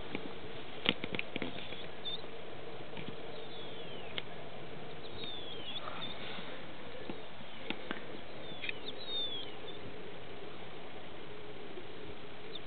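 Several short, high chirps, each falling in pitch, from an animal, over a steady low hum, with a few faint clicks.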